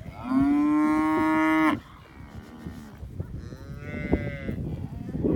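Crossbred beef cow mooing once, loud and drawn out for about a second and a half before cutting off, followed about three seconds in by a fainter, higher-pitched moo from another animal in the herd.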